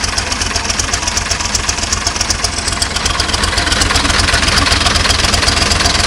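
Zetor 7245 tractor's four-cylinder turbo diesel idling through a TIG-welded stainless steel vertical exhaust stack and muffler, a steady, rapid beat of exhaust pulses that gets slightly louder about halfway through.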